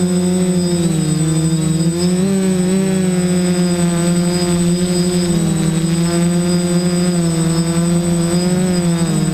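Electric motors and propellers of a DJI multirotor drone humming steadily in flight, the buzzing pitch wavering slightly up and down, with a steady high-pitched whine above it.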